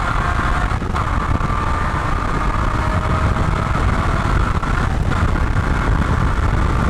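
Porsche 981 Boxster's flat-six engine at full throttle, heard from inside the cabin as the car accelerates hard. The pitch climbs steadily, with two quick upshifts: third to fourth about a second in, and fourth to fifth about five seconds in.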